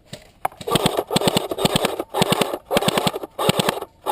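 Airsoft gun firing in a string of short bursts, about six, each a rapid run of clicks lasting around half a second.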